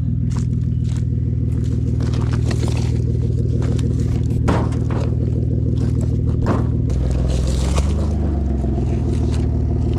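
Vehicle engine idling steadily, its pitch wavering briefly near the end, with a few scraping and knocking sounds over it.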